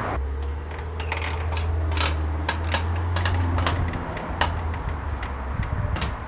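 Zip ties being pulled tight by hand around a conduit trellis rail and netting: a string of irregular sharp clicks, two or three a second, with a low steady hum underneath that fades after about four seconds.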